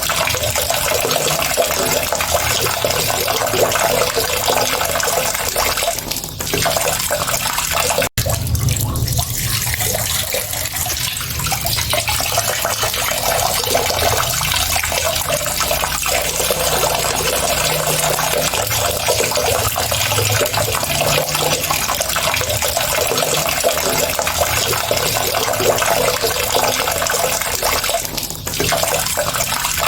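Steady rush of running water, a continuous dense splashing with no break in its flow except a momentary dropout about eight seconds in.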